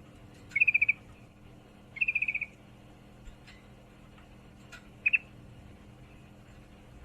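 Female yellow-vented bulbul (trucukan) giving short, rapid chattering trills: two quick runs of high notes about a second and a half apart, then a brief double note near the end. It is the call of a female in breeding condition calling for a male.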